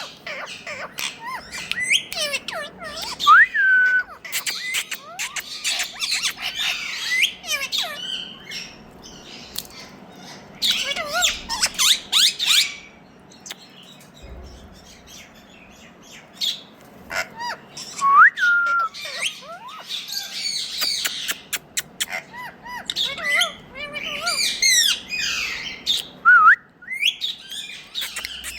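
Indian ringneck parakeet calling: runs of squawks and quick chirps with a few sliding whistles, easing off for a few seconds about halfway through.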